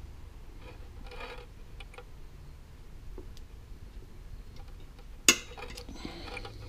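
A center punch striking the steel of an AR-15 flash hider held in a vise, marking the drilling spot: one sharp metallic snap about five seconds in, amid a few faint clicks and handling rustles.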